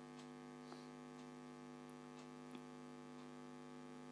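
Near silence with a steady electrical hum and a couple of faint ticks.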